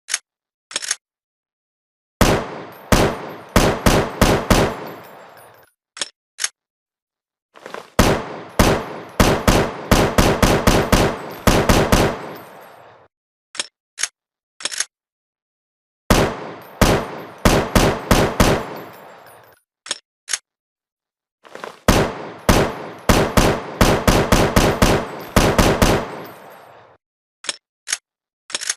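AR-7 assault rifle sound effect: four bursts of rapid fire at about three to four shots a second, each shot with a fading echo tail. Between the bursts are dead silence and a few light, high metallic clicks.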